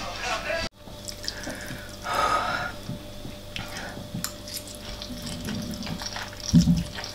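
Close-up eating sounds: a wet slurp of noodles about two seconds in, small clicks of cutlery, and a low thump near the end.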